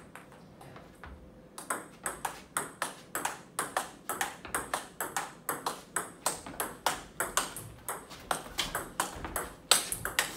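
Celluloid-type table tennis balls clicking off the table and the bats in a fast multi-ball feed: underspin balls fed out wide and struck with forehands, about three clicks a second after a quieter first second and a half. The loudest is a hard forehand hit near the end.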